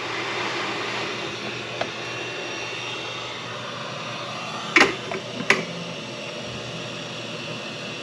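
Hot-air rework station blowing a steady rush of air onto a circuit board to melt the solder for a new charging connector. Two short clicks come about five seconds in.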